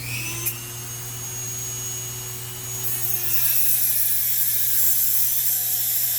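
A Dremel rotary tool spins up with a high whine. From about three seconds in a loud, harsh grinding hiss joins it as the tool cuts a slot into a Torx screw head, so the screw can be turned out with a flat screwdriver.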